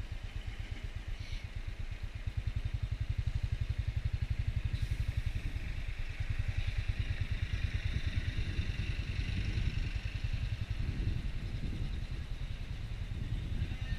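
Motorcycle engine running as the bike rides along a highway, with a dense low pulsing, getting louder about two seconds in.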